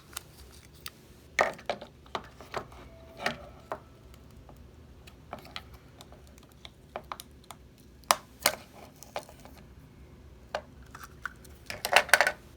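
Scattered sharp plastic clicks and taps from hands opening and handling a small recovered GoPro camera and its housing, with a quick run of clicks near the end.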